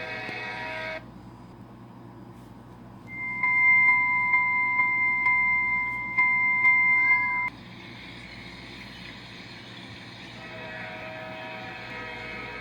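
Railroad sound effects: a multi-note train horn chord ends about a second in, then a bell rings about twice a second for roughly four seconds, the loudest sound. Over a steady train rumble, the horn chord sounds again near the end.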